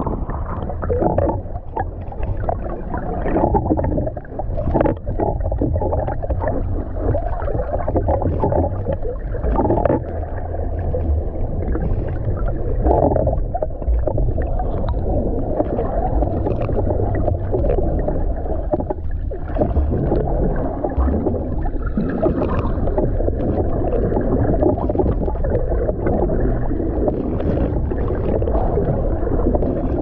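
Muffled underwater rumble and water sloshing picked up by a submerged GoPro Hero 9 while snorkelling, with scattered faint clicks throughout.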